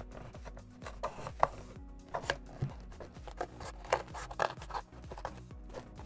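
Scissors snipping through a cardboard box in short, irregular cuts while a hole is cut out, over quiet background music.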